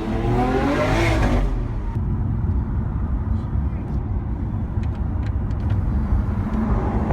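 Lamborghini Aventador SV's 6.5-litre V12 accelerating, its pitch climbing for about a second and a half before it lifts off. A steady low engine and road rumble follows.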